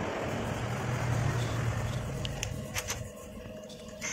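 Cordless power driver running steadily as it spins in the camshaft sprocket bolts, stopping about three seconds in, followed by a few light metal clicks.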